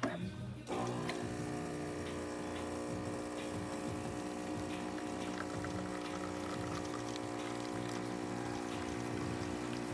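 DeLonghi Magnifica espresso machine's pump kicks in about a second in and runs steadily with an even hum while water pours out. This is a pressure test after the corroded generator was replaced.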